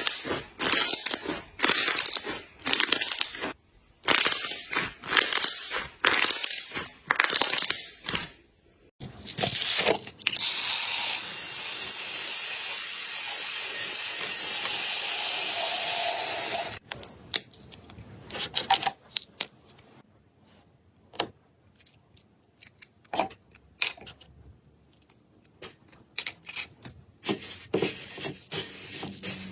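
Slime being worked and mixed by hand, with quick crackling, crunchy squishes in irregular bursts. About nine seconds in, a steady hiss runs for around seven seconds and then cuts off. Sparse soft clicks and pops follow, and the busier squishing returns near the end.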